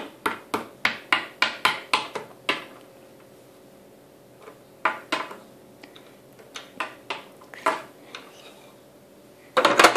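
Small hard plastic toy figures tapped and hopped along a floor by hand, a quick run of light clicks about three a second, then scattered taps in small groups. A louder burst of handling noise comes near the end.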